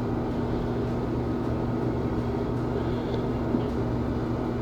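Steady low room hum with a faint, even tone, like an air conditioner or fan running, and a small click about three and a half seconds in.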